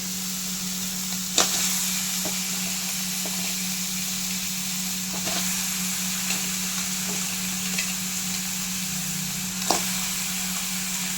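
Crab pieces sizzling and being stirred in a kadai of fried onion-tomato masala. There are a few sharp knocks against the pan, the loudest about a second in and again near the end.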